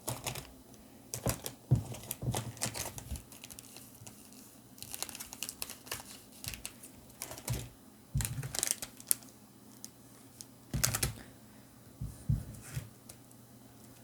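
Sealed foil booster packs being handled: irregular clusters of light crinkles and small taps.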